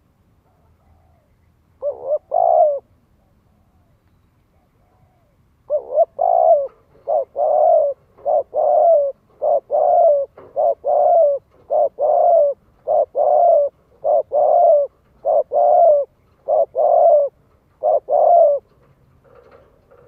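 Spotted dove cooing. A short phrase of low coos comes about two seconds in. From about six seconds it gives a long run of repeated two-note coos, a short note then a longer one, about one pair a second.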